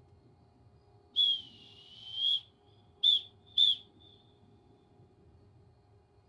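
Drum major's whistle: one long blast about a second in, then two short blasts in quick succession, a long-short-short signal to the marching band.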